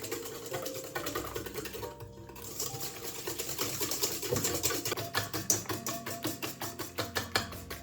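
Rapid, regular clicking strokes of a kitchen utensil working in a bowl or on a board, about six a second and growing louder partway through, with soft background music underneath.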